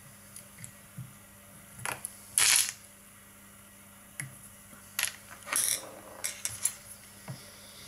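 Fly-tying tools handled close to the vise: small sharp metallic clicks and brief rasping snips, the loudest a short rasp about two and a half seconds in. A cluster of clicks and snips follows in the second half as fine scissors cut the tying thread.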